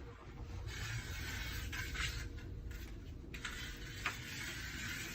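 Utility blade drawn along double-sided tape on a bottom door track, trimming off the excess tape: two long rasping strokes of about two and a half seconds each, with a short click about four seconds in.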